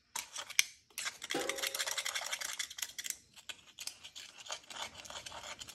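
A small pocket screwdriver scraping and clicking inside a crankshaft's pilot-bushing bore, digging out the bread that was packed in to hydraulic the old bushing out. A rapid run of scratches and small metal ticks, with a brief ringing scrape about a second and a half in.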